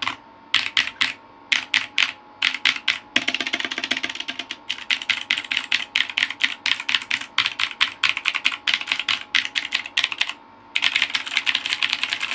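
Vortex Series VX5 mechanical keyboard with clicky Outemu Blue switches being typed on: keystrokes in short bursts at first, then faster continuous typing, a brief pause about ten seconds in, and a rapid flurry of keystrokes after it.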